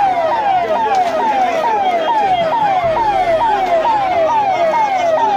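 Ambulance siren sounding a fast, repeating falling wail, about two sweeps a second, each jumping up and dropping in pitch.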